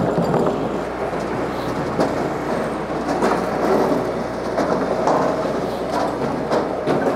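Japa 395 firewood processor and its tractor power pack running with a steady mechanical drone. Split firewood clatters off the conveyor in irregular knocks.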